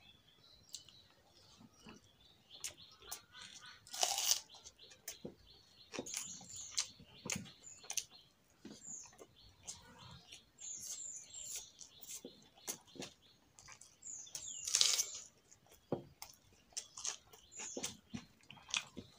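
Close-up mouth and hand sounds of eating rice and vegetable curry by hand: fingers squishing rice against a steel plate, chewing and lip smacks, many small clicks. Two louder noisy bursts come about four seconds in and again about fifteen seconds in.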